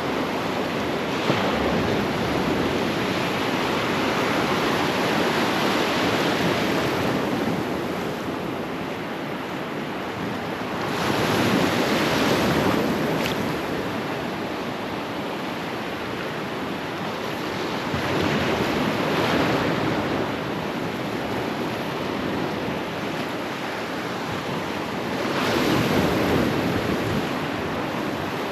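Ocean surf breaking and washing up the beach, swelling louder every six or seven seconds as each wave comes in, with wind rumbling on the microphone.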